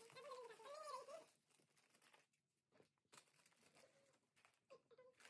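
Faint rustling and small clicks of jewellery and plastic packets being handled and packed away. A high, wavering pitched sound, like a hum or a call, runs through about the first second and stops.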